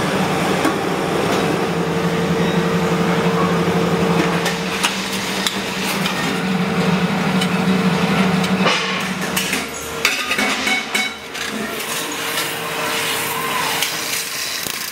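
Metal-forming machinery working on milk can bodies. A hydraulic press hums steadily for about the first nine seconds. Then the hum drops away to clanks and knocks of sheet-metal can bodies and the scraping of a cutting tool against a can spinning on a lathe.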